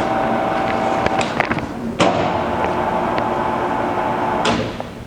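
Clausing-Metosa C1340S engine lathe running at a higher spindle speed: a steady gear whine from the headstock with scattered clicks. About two seconds in, a sharp knock and the whine shifts to a new pitch. It cuts off with a click near the end.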